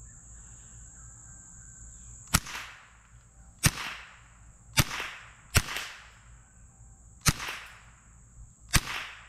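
Six .22 Long Rifle shots from a Savage rifle fired at steel targets, each a sharp crack with a short echoing tail, irregularly spaced about a second apart. Crickets chirr steadily underneath.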